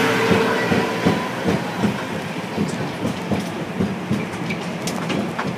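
Ride aboard a zoo's tour road train: the carriage rattles and knocks unevenly over a steady running rumble as it drives along. A steady hum fades out about a second in.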